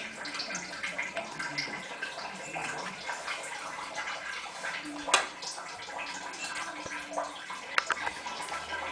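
Water running and splashing in an Indesit WIE127 washing machine, with a sharp knock about five seconds in and a few clicks near the end. No drain pump is heard running: the machine has an F-11 no-drain fault and the pump gives no sound at all.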